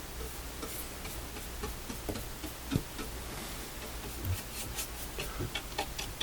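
Light, irregular clicks and taps from handling a varnish brush and small wooden stool parts, coming more often in the second half, over a low steady hum.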